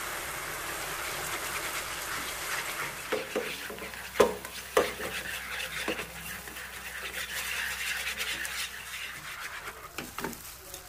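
Fish-sauce glaze with minced garlic and shallots bubbling and sizzling in chicken fat in a nonstick frying pan. A few sharp knocks of the stirring utensils against the pan come about three to six seconds in and again near the end.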